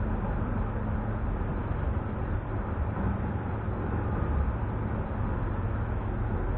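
ES2G Lastochka electric multiple unit running, heard from inside the passenger car: a steady low rumble with a faint hum.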